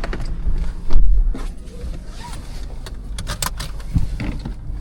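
Low, steady rumble of a 2015 Volkswagen GTI's 2.0-litre turbo four-cylinder heard from inside the car. A heavy low thump about a second in is the loudest sound, and a quick cluster of sharp clicks follows near the middle.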